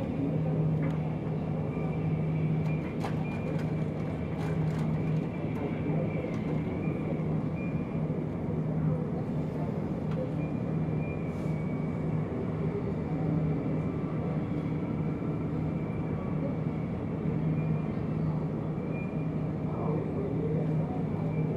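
Heavy diesel dump trucks and service vehicles running past on an airport apron, with a low engine drone that swells and fades as they go by. A steady high whine runs underneath, and a few faint clicks come a few seconds in.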